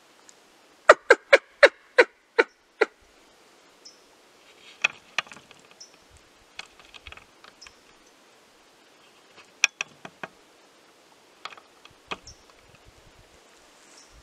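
A quick run of about eight sharp, chucking barks in two seconds, like an animal's alarm call. Scattered clicks and snaps follow, with a short cluster near the ten-second mark.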